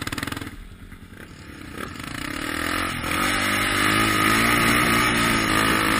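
Quad bike (ATV) engine pulsing at low revs, then picking up from about two seconds in and running steadily at high revs.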